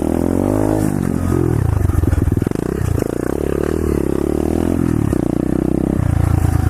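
Pit bike engine running under way, its revs rising and falling several times as the throttle is worked.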